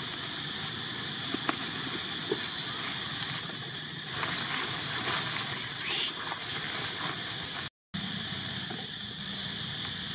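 Outdoor forest ambience: a steady, high-pitched insect drone over a noisy background, with a few light clicks and rustles about a second or two in and a somewhat louder rustling stretch around the middle.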